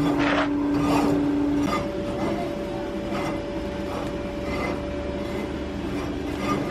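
Motor-driven machine running with a steady hum, over light scraping and clinking. About two seconds in, the hum gives way to a different, higher-pitched steady hum.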